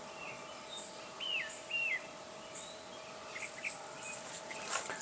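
Birds chirping: a few short call notes over quiet background, with two clearer down-slurred chirps between one and two seconds in.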